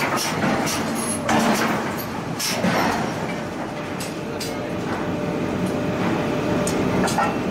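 Heavy forging machinery running steadily in a forge shop, with a few irregular sharp metal knocks, the loudest about one and a half seconds in, as a punch is driven through a red-hot steel flange forging.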